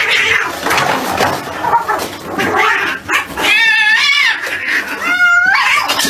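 Cat yowling: two long wavering calls in the second half, over busy, noisy sound.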